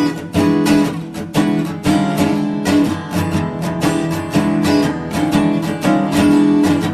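Background music played on acoustic guitar, a quick run of plucked notes and strums.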